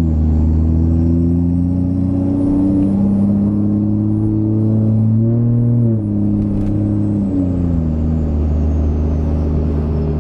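Ram 2500's 6.7-litre Cummins diesel heard from inside the cab, pulling under light throttle with its pitch slowly climbing, then dropping twice in the second half as the 68RFE automatic upshifts. The shifts come through a freshly installed Revmax billet valve body and feel firmer and more solid to the driver.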